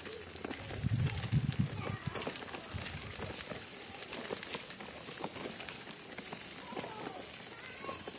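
Stroller wheels rolling over a gravel path, a steady crunch of many small crackles, with a few louder low bumps about a second in and a steady high hiss behind.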